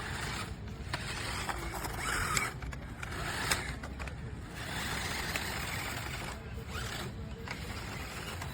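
Remote-control monster truck driving on rough ground: its motor and tyres make a rough rushing noise in bursts, with short breaks as it stops and starts, over a steady low rumble.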